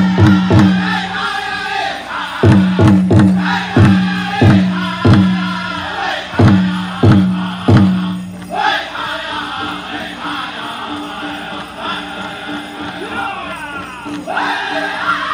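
Powwow drum group singing, with heavy beats on a big drum under the high voices. The drumbeats drop out about eight seconds in while the singing goes on.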